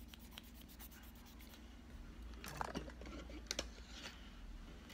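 Faint handling noise: fingers rubbing and light knocks as a classical guitar is moved, with a few small clicks about two and a half to three and a half seconds in.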